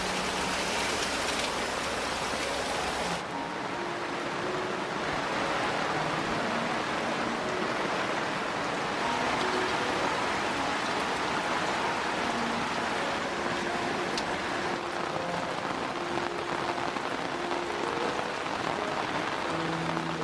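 Steady rain falling, a dense even hiss. The sharpest part of the hiss falls away about three seconds in, while the rain keeps on.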